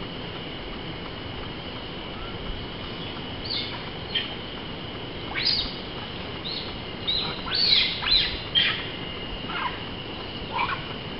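A series of short, high-pitched animal calls, each sliding quickly down in pitch. They come sparsely at first and bunch together loudest a little past the middle, over a steady thin high whine.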